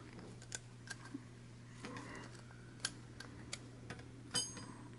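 Faint, irregular small clicks of pliers gripping and peeling old nylon PCV line off a plastic hose fitting, with one brief metallic ring about four seconds in.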